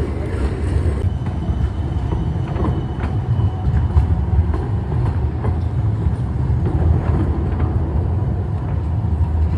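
Electric low-floor city tram rolling through a street junction: a steady rumble with scattered clicks of the wheels on the track, and a faint thin high squeal from about a second in to about four seconds in.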